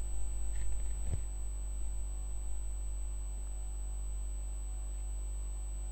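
Background noise of a home recording: a steady low electrical hum with a thin high whine above it, and a single faint click about a second in.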